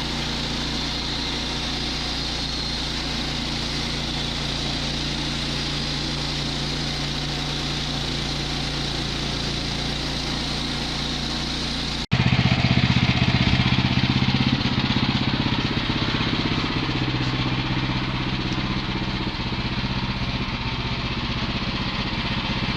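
Woodland Mills HM122 portable bandsaw mill's gas engine running steadily at speed while milling boards. About halfway through it breaks off and starts again louder and rougher.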